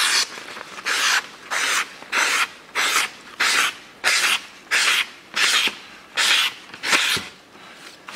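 Machete with a field-sharpened edge slicing through thin brown paper: about a dozen quick strokes, roughly one every half second, each a short papery rasp, stopping about seven seconds in.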